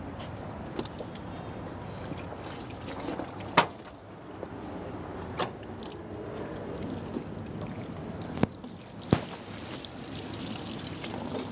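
Water pouring and trickling as hands are washed over a metal basin, broken by four sharp knocks, the loudest about three and a half seconds in.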